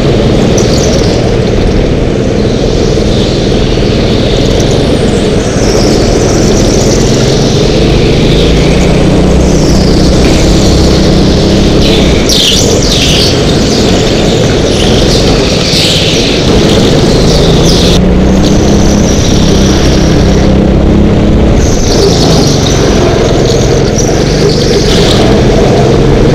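Go-kart engine running hard, its pitch rising and falling as the driver brakes and accelerates through the corners, with repeated tyre squeals from the karts sliding on the smooth indoor track floor.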